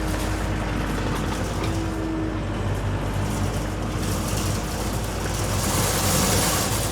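Diesel engine of a compact loader running steadily while it works a pile of asphalt millings, with a louder hiss building up near the end.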